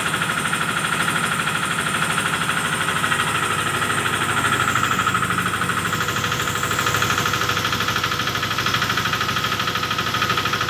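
An FFC-45 iron disc grain mill running steadily with its drive engine: a loud, even, fast-pulsing mechanical hum.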